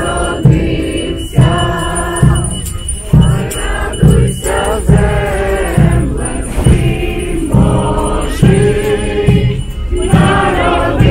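A group of carolers singing a Ukrainian Christmas carol (koliadka) together, with a steady low beat about once a second keeping time.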